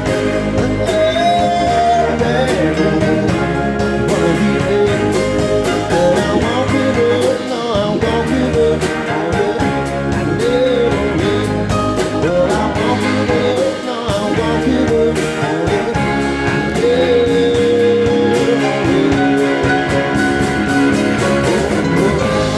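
Live band playing an instrumental passage: electric guitar, keyboards, bass and drums keeping a steady beat, with a lead line that bends in pitch.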